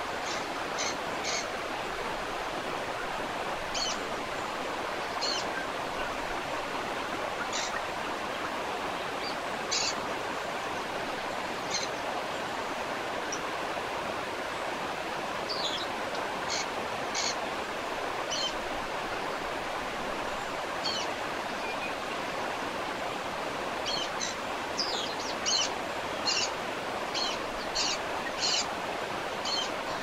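Waterfall rushing steadily, with short, high bird calls scattered over it that come thick and fast near the end.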